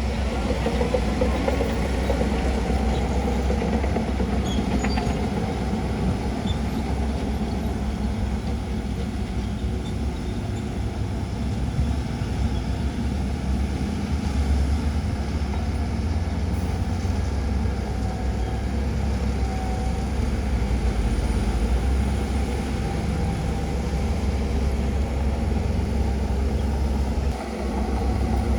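Diesel engine of a Shantui DH17C2 bulldozer running steadily with a deep rumble, dipping briefly about a second before the end.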